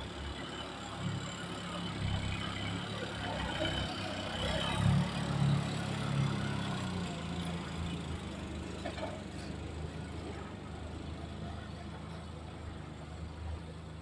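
Heli forklift engine running steadily as the truck carries a load of sawn wooden slabs, the engine note swelling louder for a couple of seconds around the middle.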